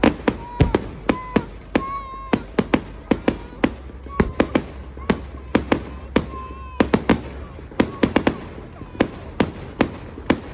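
Aerial fireworks bursting overhead: a rapid, irregular string of sharp bangs, about three a second, without a break.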